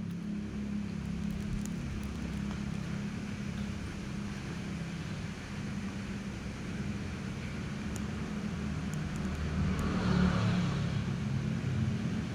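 A steady low mechanical hum, with a brief swell of hiss about ten seconds in.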